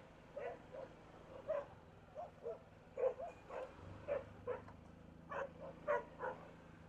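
A dog barking repeatedly in short, irregularly spaced barks, over a low steady hum.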